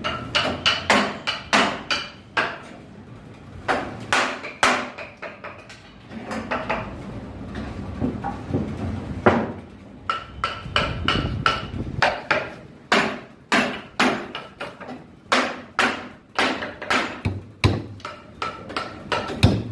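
Hammer strikes, irregular and often coming a few a second, many with a short metallic ring.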